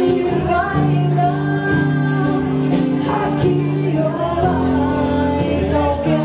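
A woman singing a ballad-like melody over her own strummed acoustic guitar, live in a hall.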